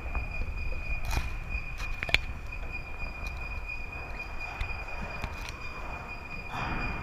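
Steady high-pitched insect drone, one unbroken tone, over a low rumble. Two sharp clicks come about one and two seconds in, and a rustling noise rises near the end.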